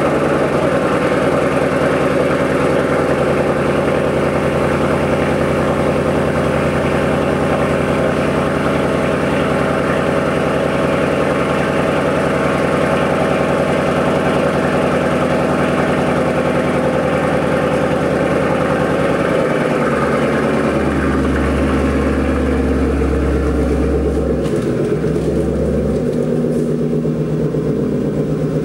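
Ford Mustang GT's Coyote 5.0 V8 idling steadily through Roush axle-back mufflers with the resonator deleted. A low drone in the note shifts about 20 seconds in.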